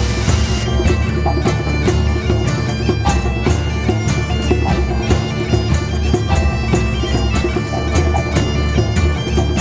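Background music with a steady beat over held melodic tones.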